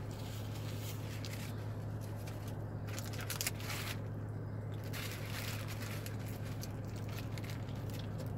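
Close mouth sounds of a person chewing a burger, with scattered crackly ticks from the paper wrapper being handled, over a steady low hum.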